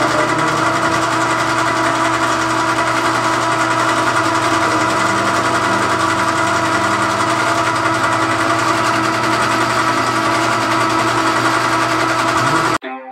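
Metal lathe running steadily, its motor and gearing giving a constant whine, as it turns down spacer stock. The sound cuts off abruptly near the end.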